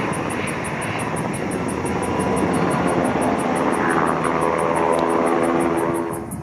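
Sikorsky EH-60A Black Hawk helicopter in flight close by, its rotors and twin turboshaft engines making a loud, steady rumble with a fast even pulse of the blades. From about halfway, a set of engine tones comes through and sinks slightly in pitch as it flies past, then the sound changes abruptly near the end.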